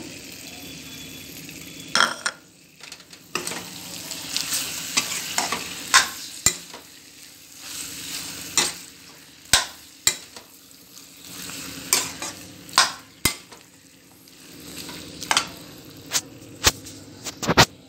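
Steel spoon stirring potato masala in a metal pan, scraping and knocking against the pan at irregular intervals, over a low sizzle from the hot filling.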